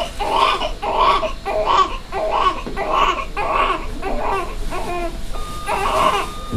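Newborn baby crying in short, rapid, repeated cries, about two a second, with a brief pause near the end. A steady high tone comes in near the end.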